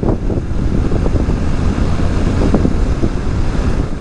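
Loud wind rushing over the microphone of a motorcycle moving at road speed, with the bike's running underneath.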